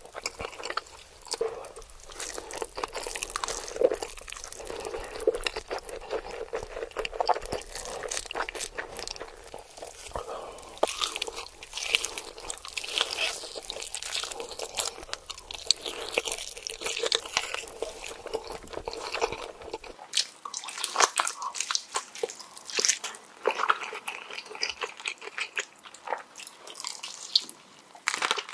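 Close-miked mukbang eating sounds: repeated bites, crunching and chewing of spicy food, with many sharp, irregular crackles.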